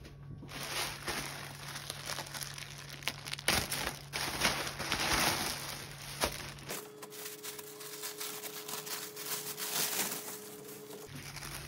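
Clear plastic packaging bag and white paper wrapping crinkling and rustling in irregular handfuls as a polyester polo shirt is pulled out of them.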